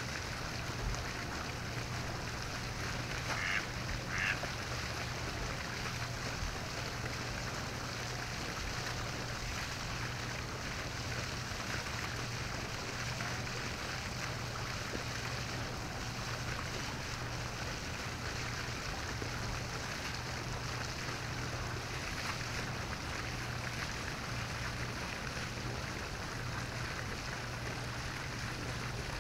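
Steady outdoor background hiss with a constant low hum. Two short waterfowl calls come close together about three and a half seconds in, and there are a few faint calls later on.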